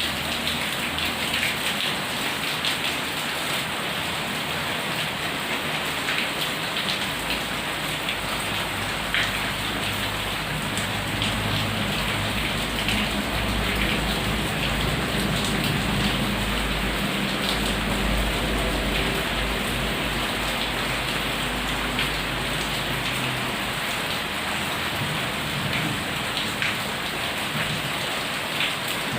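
Heavy rain falling steadily, with drops pattering on a surface, and a low rumble of distant thunder swelling up about a quarter of the way in and fading out about three quarters through.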